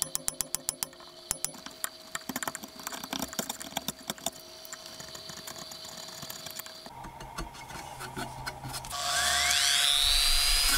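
A small chisel scraping and nicking at a wooden saw handle, a run of sharp clicks. About two seconds from the end, a Dremel rotary tool with a sanding drum starts up and becomes the loudest sound, its whine rising in pitch as it speeds up.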